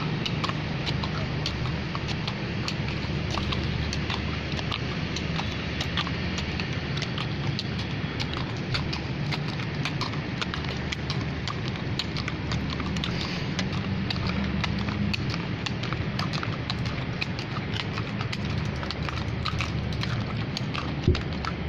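Horse's hooves clip-clopping, a steady run of sharp clicks over a continuous low rumble, with one louder knock near the end.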